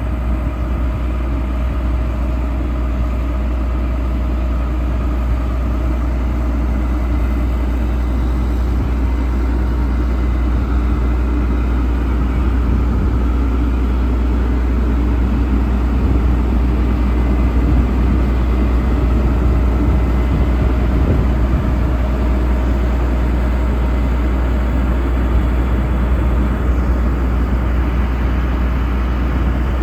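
Vehicle engine running steadily, a deep, even rumble with no change in speed.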